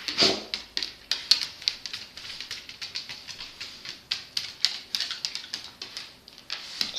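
A dog's teeth chattering: rapid, irregular clicking, the sign of the dog shivering with cold after a bath.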